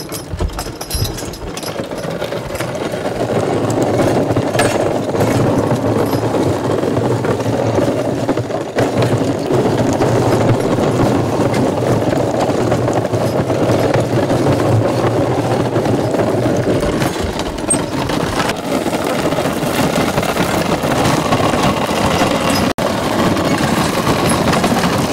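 Horse-powered sweep-driven burr mill grinding ear corn: a steady mechanical grinding rumble that grows louder over the first few seconds and then holds.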